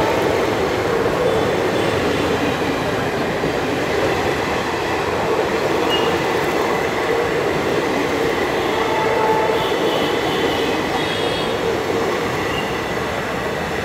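Passenger coaches of an Indian Railways express train running past at speed, a steady loud rumble of wheels on rail. A few faint high squeals come through about nine to eleven seconds in.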